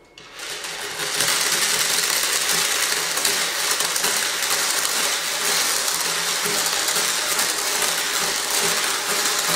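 A long string of beads sliding across a tabletop and pouring down off the edge under its own weight, a continuous dense rattling clatter.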